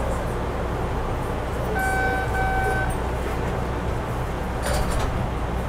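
MBTA subway train running through a tunnel with a steady low rumble, heard from the front of the train. About two seconds in, two short horn toots sound back to back, and near the end there is a brief rush of noise.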